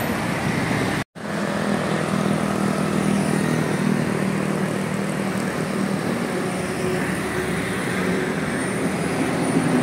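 A bus's diesel engine running steadily, with outdoor traffic noise, broken by a brief cut to silence about a second in.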